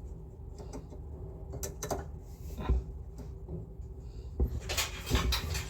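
Scattered clicks and knocks of hard parts being handled, busiest a little before the end, over a low steady hum.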